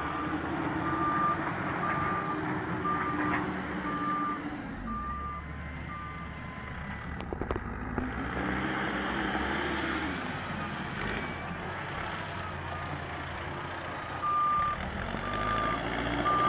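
Backhoe loader's diesel engine running and revving up and down while it works, with its reversing alarm beeping at a little over one beep a second for the first several seconds and again near the end.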